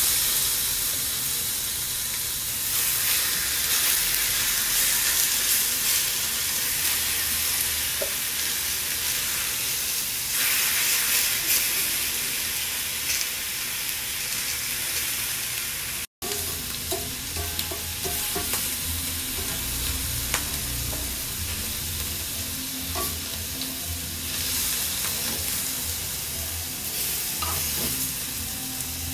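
Cubes of raw pork sizzling steadily as they sear in a hot cast-iron skillet. The sizzle cuts out for an instant about halfway through, and tongs turning the pieces are heard near the end.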